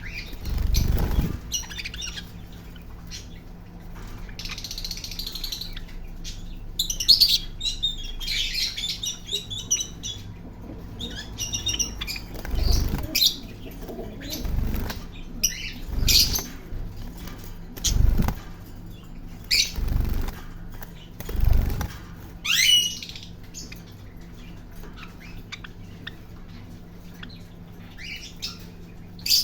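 A parrot chirping and calling in short high notes, with one longer falling call about two-thirds of the way through. Low thumps come once at the start and then about every two seconds through the middle stretch.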